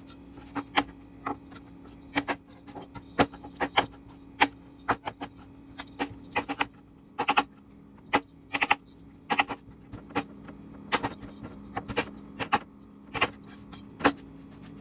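Knife cutting blanched artichoke hearts on a cutting board: irregular sharp knocks, about two a second.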